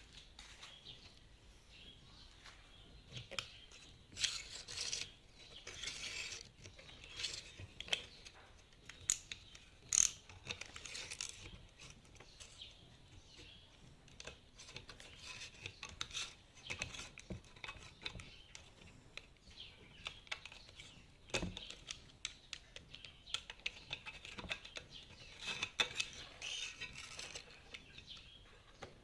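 Hand tools at work on a loudspeaker: irregular scraping, rubbing and small clicks, with a few sharper clicks and one dull knock.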